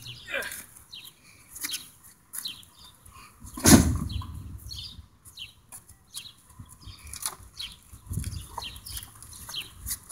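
A heavy door being shifted and lifted by hand on asphalt, with one loud bang about four seconds in and softer knocks and scrapes later. Small birds chirp throughout.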